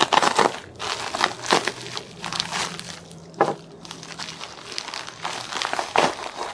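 Plastic padded mailer crinkling and crackling as it is pulled open and a folded T-shirt is drawn out of it, in irregular handling noise with a few louder crackles.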